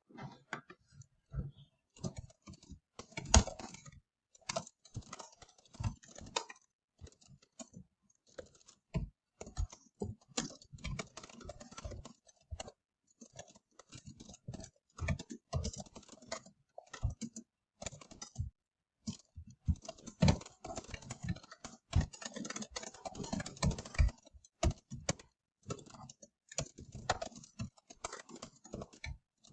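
Fast typing on a computer keyboard: runs of clicking keystrokes broken by short pauses.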